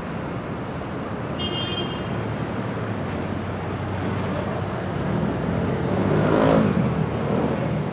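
Steady road-traffic noise on a busy city avenue, with a brief high squeal about one and a half seconds in. A vehicle passes close by, growing louder from about five seconds in and peaking near six and a half seconds.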